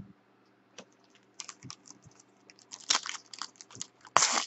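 Foil trading-card pack wrapper crinkling and tearing as it is opened by hand: irregular sharp crackles that start about a second and a half in and grow louder, the loudest burst just before the end.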